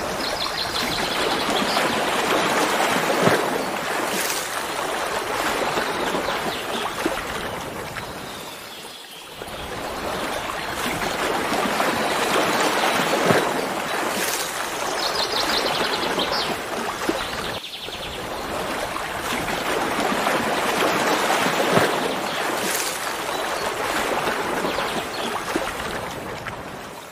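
A waterfall running steadily, an even rush of falling water that dips briefly in level twice. A short high trill sounds near the start and again about halfway through.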